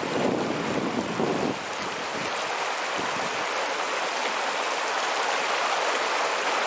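Fast-flowing upland river rushing steadily over rocks and small rapids. A low wind rumble on the microphone stops about a second and a half in, leaving only the water.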